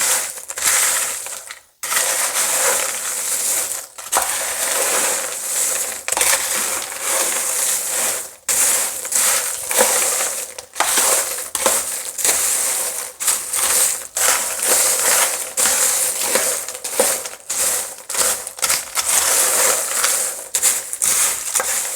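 Oyster crackers being stirred with a spoon to coat them in oil and seasoning: a steady rattling, crunching shuffle of many small dry crackers, broken by brief pauses between strokes.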